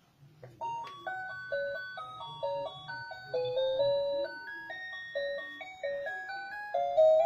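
Fisher-Price Roll-Along Dino baby toy playing its electronic tune: a simple beeping melody of single notes that starts about half a second in.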